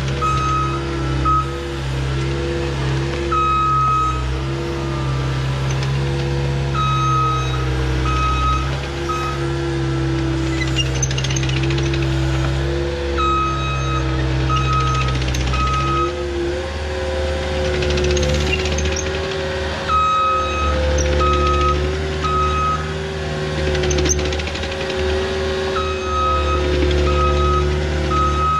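Heavy earthmoving machine's engine running steadily while its backup alarm beeps in repeated runs as it reverses. The engine note steps up about halfway through.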